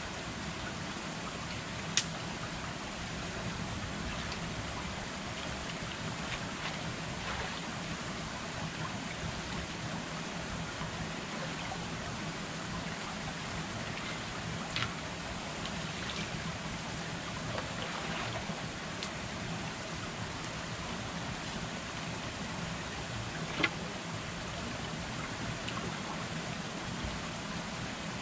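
Steady noise of creek water flowing, broken by three short sharp clicks spread through.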